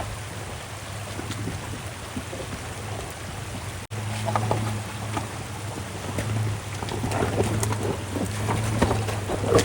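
An off-road truck driving slowly over a rough trail: a steady low engine drone with irregular crackling and crunching from the tyres, busier in the second half.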